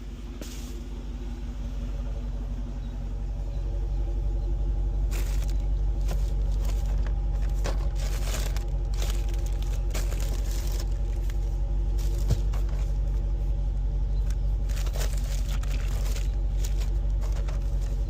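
Car driving, heard from inside the cabin: a low engine and road rumble that builds over the first few seconds as the car gathers speed, then holds steady, with scattered light clicks and knocks.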